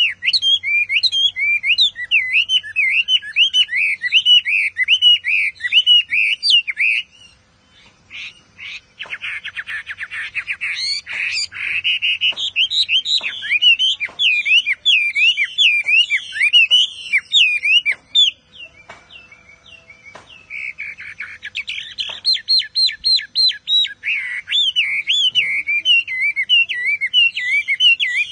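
Chinese hwamei (Garrulax canorus) singing in a cage: long runs of loud, rapidly repeated whistled notes sweeping up and down, broken by two short pauses and by stretches of fast buzzy notes.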